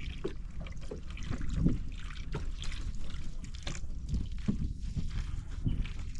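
Seawater splashing and trickling around a small fishing boat, with a steady low rumble and irregular knocks and taps.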